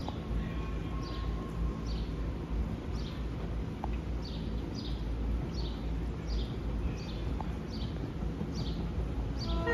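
A bird calling over and over, a short downward-slurred chirp about once a second, over a steady low rumble.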